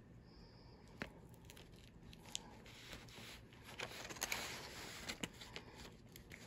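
Faint crinkling and tearing of plastic snack packaging, with a few sharp clicks and a busier rustling stretch about halfway through.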